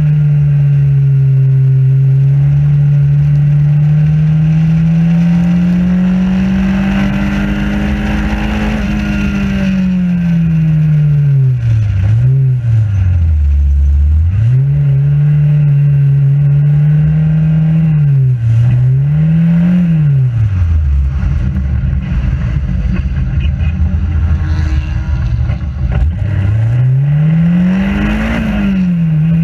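Racing car engine heard from the open cockpit. The revs climb steadily for the first nine seconds or so, then fall in steps through downshifts into a slow corner, build again, and drop low once more around twenty seconds in before climbing hard near the end. A low rush of wind and road noise runs under the engine.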